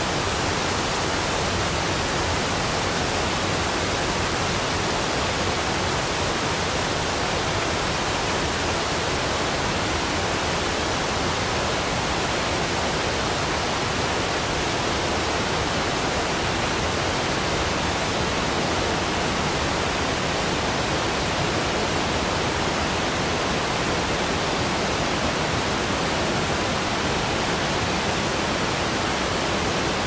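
Steady, unbroken rushing roar of a large waterfall, an even wash of noise with no changes.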